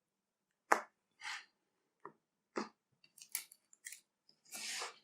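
Cards and small objects handled on a tabletop: one sharp click, then a few lighter clicks and taps and two short rustling swishes, the second one longer near the end.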